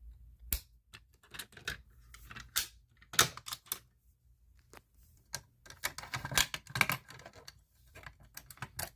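Fire alarm pull stations being reset: an irregular series of sharp plastic and metal clicks and clacks as the pulled handles and covers are worked back into place, busiest about six to seven seconds in.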